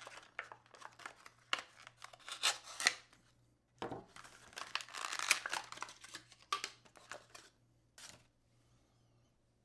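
Packaging being handled and torn open: irregular crinkling and tearing rustles that stop about eight seconds in.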